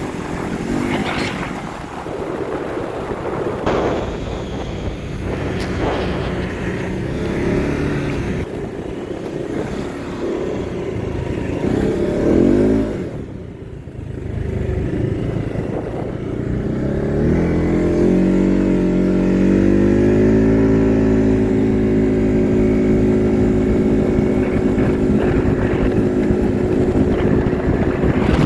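Arctic Cat Alterra 600 ATV's single-cylinder engine under way, its pitch rising and falling with the throttle. About halfway through it drops off briefly, then climbs over a few seconds and holds a steady high note.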